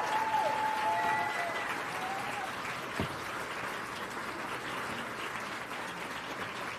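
Audience applauding, with a few cheering voices in the first two seconds. A single sharp knock about three seconds in, and the clapping eases a little after that.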